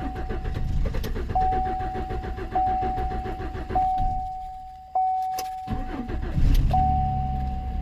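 2014 Chevrolet Silverado's 4.3-litre V6 being cranked and brought to run on fuel fed to the rail from an injector flusher, since its failed in-tank fuel pump is disabled: it cranks, drops off briefly near the middle, then picks up and runs. A dashboard warning chime repeats about every second and a quarter throughout.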